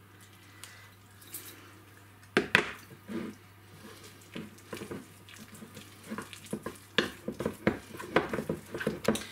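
A single hard knock about two and a half seconds in, then a spoon stirring thick lemon icing of powdered sugar and lemon juice in a bowl: wet sticky sounds with repeated clicks and scrapes of the spoon against the bowl, getting busier toward the end.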